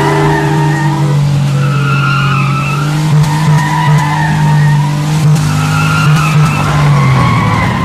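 Car engine held at high revs while its rear tyres squeal and spin in a burnout, throwing up tyre smoke. The engine's note stays steady and the squeal wavers in pitch.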